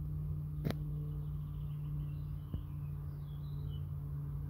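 Steady low hum, with faint bird chirps in the background from about halfway through and a sharp click under a second in.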